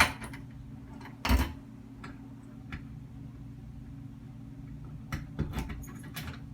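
A newly installed doorknob and lock clicking and clacking as they are worked to test them, with one loud clack about a second in and a cluster of lighter clicks near the end.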